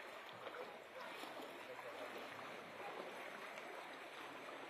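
Faint, steady sloshing of knee-deep floodwater as several people wade through it.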